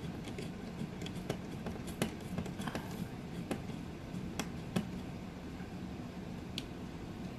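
Small screwdriver driving screws into an outlet wall plate: scattered light clicks and scrapes of metal on the plate, over a faint steady hum.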